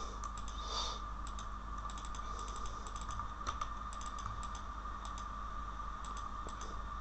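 Computer keyboard being typed on in short, irregular runs of key clicks, over a faint steady whine.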